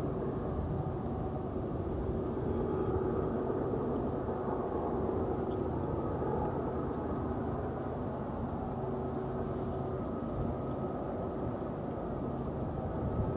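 Distant freight train's diesel locomotives running steadily, a low drone with a constant hum.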